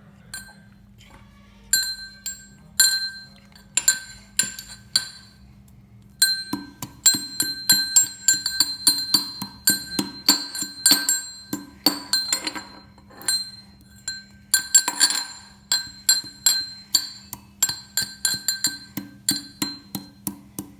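Ginger being pounded into a paste with a pestle in a mortar, each strike ringing. The strikes are sparse for the first few seconds, then settle into a steady beat of about three a second.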